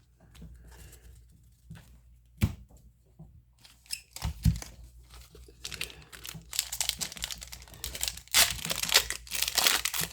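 A few light clicks of cards being handled, then from about six seconds in a trading-card pack wrapper crinkling and tearing as it is worked open.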